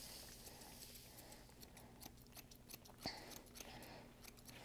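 Faint, irregular snips of thinning shears cutting through a bearded collie's long coat, with one sharper snip about three seconds in.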